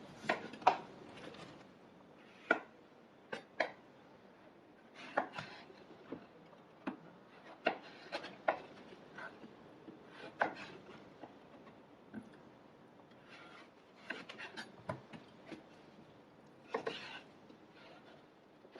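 Kitchen knife cutting on a cutting board: scattered, irregular knocks, a second or so apart, with light scraping between them.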